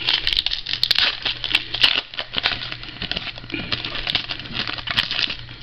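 Clear plastic packaging crinkling and rustling in quick, irregular crackles as a trading card is handled and pulled out.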